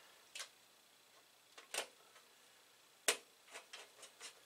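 Light metallic clicks and taps of hands fitting the Amiga 1000's sheet-metal top shield into place: a few single clicks about a second apart, the sharpest about three seconds in, then a quick run of small clicks near the end.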